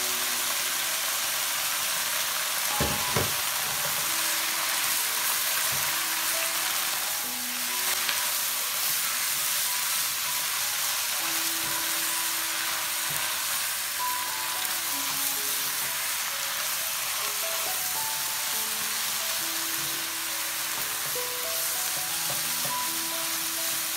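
Garlic chives, carrot strips and scrambled egg sizzling in hot oil in a wok as a spatula stir-fries them, a steady hiss throughout. Two sharp knocks come about three seconds in.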